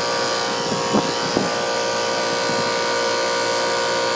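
Lennox central air conditioner's outdoor unit running in cooling mode: a steady, pretty noisy hum of the compressor and condenser fan, with several constant tones. Two brief knocks come about a second in.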